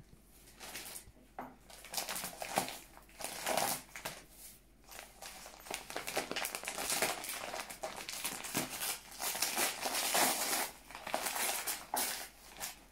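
Gift wrapping crinkling and rustling as it is unfolded and pulled open by hand, in irregular bursts of crackle.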